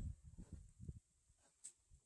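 Near silence, with a few faint low bumps in the first second and a faint tick near the end.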